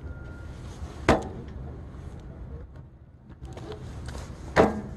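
Two sharp knocks, one about a second in and a louder one near the end, over a steady low rumble.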